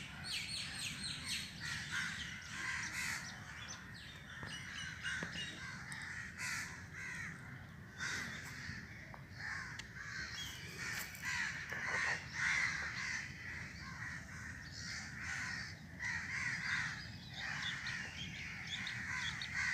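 Crows cawing over and over, many calls overlapping.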